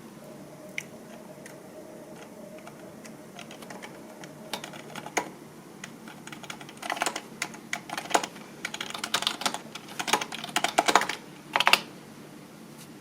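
Typing on a computer keyboard: a few scattered keystrokes at first, then quick runs of keystrokes through the second half, the loudest near the end.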